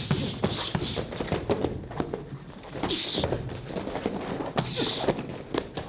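A series of irregular dull thuds and slaps of strikes landing on a padded kick shield and hand-held strike pads.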